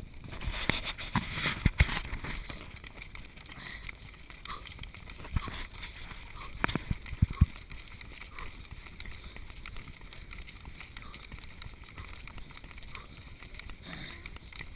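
Running footsteps on a dirt trail, picked up by a handheld camera carried by one of the runners, with sharp knocks from the camera being jostled about a second in and again around six to seven seconds.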